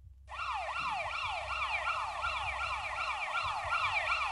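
Electronic siren-like sound effect: a quick falling wail repeated about four times a second, starting a moment in and keeping up steadily.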